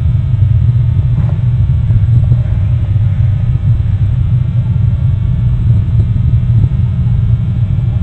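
Steady low rumble of wind buffeting an outdoor camera microphone.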